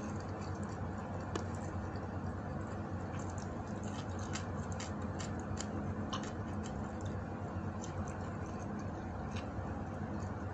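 Small, irregular clicks and crackles of fingers picking at food on a plate, over a steady low hum.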